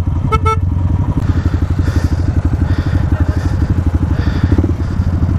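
Single-cylinder off-road motorcycle engine running at low revs with a steady, rapid exhaust beat as the bike rides up a rutted dirt trail.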